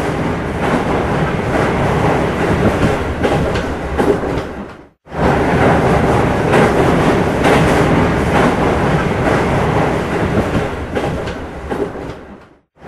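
Train running on rails, a dense rumbling clatter. It fades out about five seconds in, starts again at once, and fades out again near the end.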